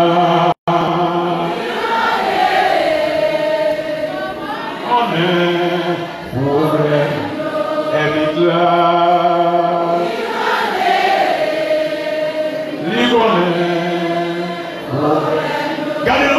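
A congregation singing a hymn together, long held notes with slides between them. A brief dropout in the audio about half a second in.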